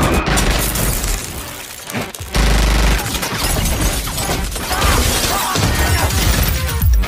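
Action film sound mix: glass shattering and rapid gunfire over music, with a heavy low impact about two and a half seconds in.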